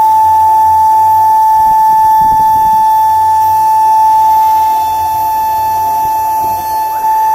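High-speed spindle of a mini CNC engraving machine whining at a steady high pitch while its engraving bit cuts an outline into a metal plate.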